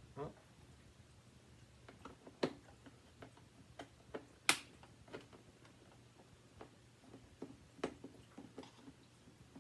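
Scattered light clicks and taps of a screwdriver and plastic parts as a Hoover WindTunnel bagless vacuum's housing is unscrewed, with sharper knocks about two and a half and four and a half seconds in.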